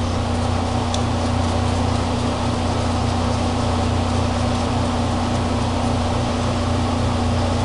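A loud, steady low mechanical hum with a constant pitch, like a motor or appliance running; it does not change at all.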